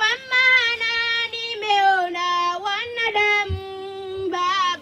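A single high-pitched voice singing a slow melody, holding long notes that glide from one pitch to the next; it starts abruptly.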